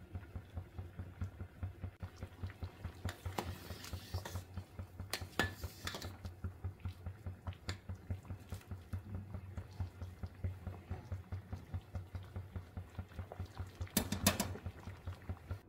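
Rice boiling in water in a stainless steel pot, bubbling with a quick steady pulse, while a steel spoon stirs and scrapes against the pot a few times, the loudest clatter near the end.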